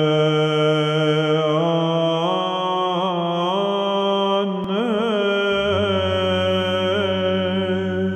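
Byzantine (Greek Orthodox) chant: a voice sings a slow, ornamented melody over a sustained held drone note, the ison. A lower drone joins about two-thirds of the way through.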